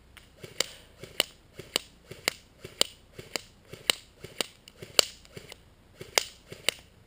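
G&P M4 airsoft electric gun, upgraded, firing single shots on semi-auto: about a dozen sharp clicks, roughly two a second.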